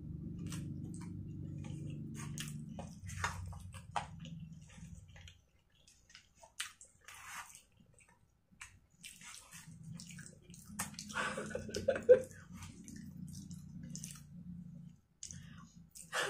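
Close-up wet chewing and slurping of black bean noodles (jajangmyeon), with many small moist clicks from the mouth. A low hum comes and goes underneath.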